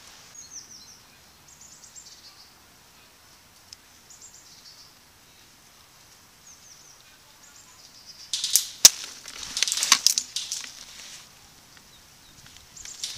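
Airsoft gunfire: about eight seconds in, a rapid string of sharp cracks and clatter lasting around three seconds.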